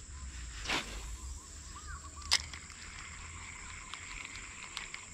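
Outdoor ambience at a rural canal: a steady high insect drone with low wind rumble on the microphone and a few faint chirping calls. A brief whoosh comes about three-quarters of a second in and a sharp click a little after two seconds.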